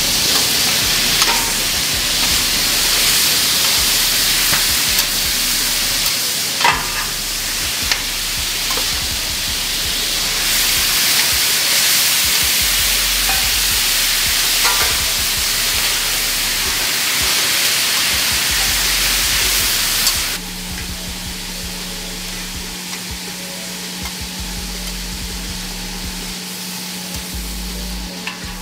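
Chopped beef and onions sizzling in oil on a steel flat-top griddle, with a few short scrapes and taps of the spatula on the steel. About two-thirds of the way through, the sizzle drops in level and a steady low hum comes in.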